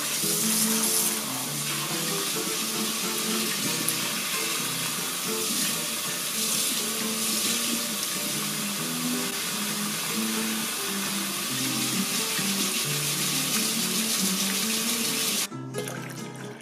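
Tap water running steadily into a stainless steel kitchen sink, splashing through a fine-mesh strainer as quinoa is rinsed. The water sound cuts off about a second before the end.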